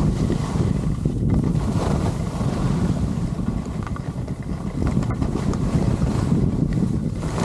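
Wind rushing and buffeting over a pole-held camera's microphone as a skier moves downhill, mixed with the hiss of skis sliding on snow.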